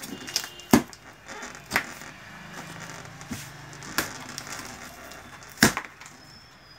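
Cardboard carton being opened with a small blade along its taped, stapled seam: scraping and rustling of tape and cardboard, with four sharp snaps a second or two apart.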